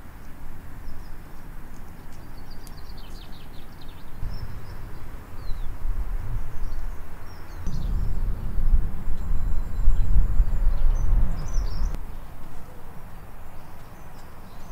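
Outdoor ambience: small birds chirping faintly and intermittently over a low rumble that swells in the middle and then fades.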